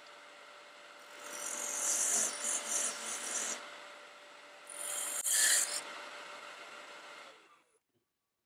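Wood lathe running while a parting tool cuts grooves into a spinning spalted beech blank: two scraping cuts of a couple of seconds each over the steady running of the lathe, which dies away near the end.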